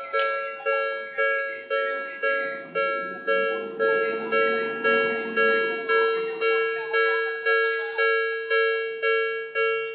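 Japanese railway level-crossing warning bell ringing steadily, an electronic clang repeating about twice a second, each stroke fading before the next: the sign that the crossing is closed for a train.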